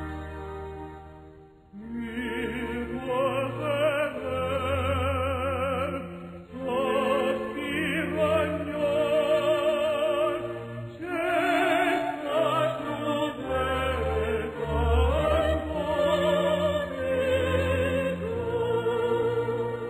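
Operatic solo singing with wide vibrato over orchestral accompaniment. The voice comes in about two seconds in and sings a run of phrases with short breaths between them.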